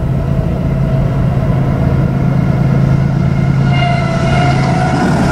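Approaching Norfolk Southern diesel freight locomotives, their engines making a steady low drone that grows louder as the train nears; a higher steady tone joins about three and a half seconds in.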